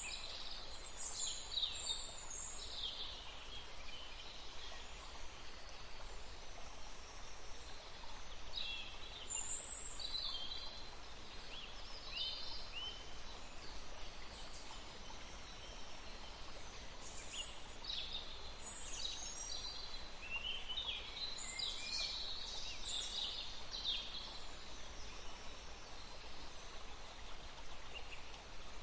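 Small birds chirping and singing in several bouts over a steady rush of flowing water. The calls cluster near the start, again around the middle third, and most densely in the later part.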